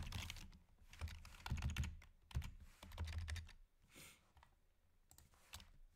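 Typing on a computer keyboard: quick runs of keystrokes for the first few seconds, then it falls mostly quiet, with one sharp click at the very end.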